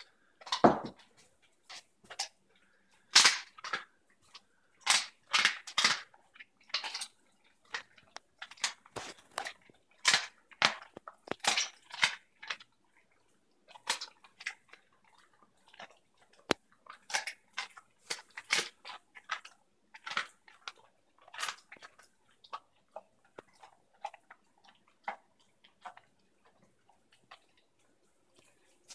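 German Shepherd dog chewing raw chicken on the bone: irregular sharp crunches, often one or two a second, growing sparser and fainter in the last several seconds.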